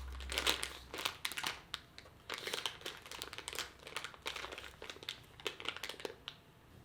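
Crinkling and crackling of something being handled: a dense run of quick, irregular crackles that stops about six seconds in.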